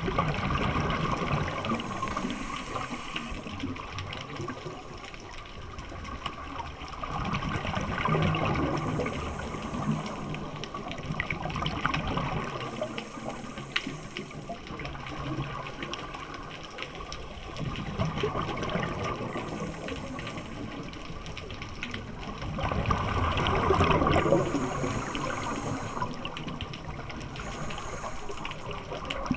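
Scuba regulator breathing heard underwater: exhaled air bubbling and gushing out of the regulator exhaust, swelling and fading in slow surges every several seconds with each breath.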